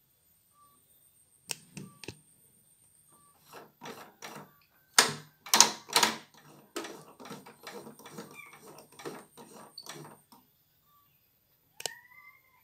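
Irregular run of plastic clicks and knocks from hands handling a CNY portable computer embroidery machine, which is not running because it is dead; the knocks are loudest about five to six seconds in.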